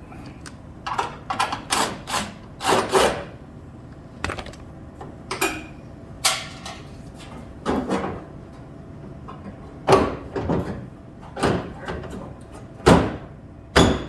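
Tools and metal parts clattering: about a dozen irregular knocks and short scraping clatters, a few seconds apart.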